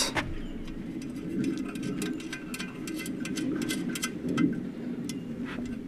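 Small metal nuts and bolts being handled and threaded by hand during assembly: a scatter of light irregular clicks and ticks over a steady low hum.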